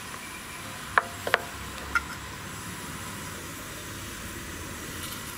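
A few sharp light taps from a small spoon knocking against plastic tubs and the bowl as ground fennel is spooned into flour: one about a second in, a quick pair just after, and one more at two seconds. A steady hiss runs underneath.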